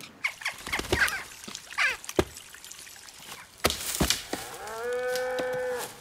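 Forest soundscape: a few short bird-like chirps and sharp cracks, then near the end a large animal's long, steady lowing call held for over a second.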